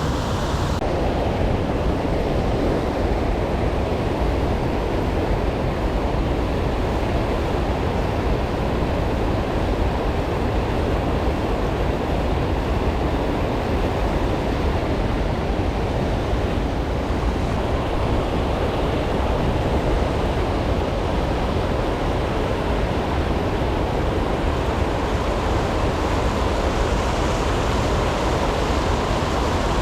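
Steady rushing noise of wind and water, with wind buffeting the microphone.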